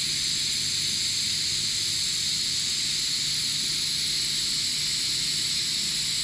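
TIG welding arc on aluminum, run on direct current electrode negative with straight argon: a steady, even hiss with a faint low hum underneath. On electrode negative the arc cannot break through aluminum's oxide film, so the weld goes in like welding in a bowl of mud.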